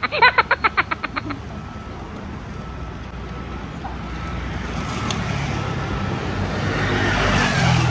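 Street traffic noise with the rumble of passing vehicles, swelling louder toward a peak near the end. It opens under a short, rapid rattling sound effect that stops after about a second.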